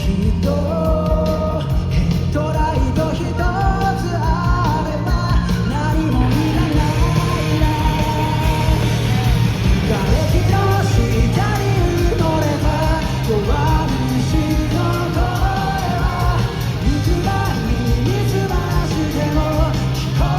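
Live pop-rock band playing with a sung vocal line, recorded from the audience at a concert.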